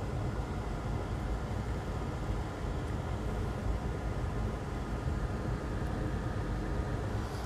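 Steady background noise: a low, even hum with hiss and no distinct events.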